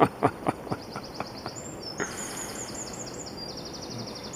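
Small songbirds singing high, rapid trills in the background, with a run of sharp clicks that fades out over the first second and a half.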